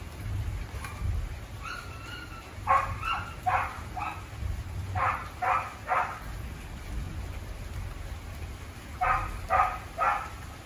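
Dogs barking in three short runs of three or four barks each, about half a second apart, over the steady noise of heavy rain.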